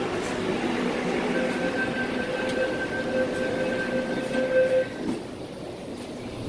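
MTR Kwun Tong Line C-Train electric multiple unit running on the track, with a steady high tone over the running noise that cuts off about five seconds in, after which the train sounds quieter.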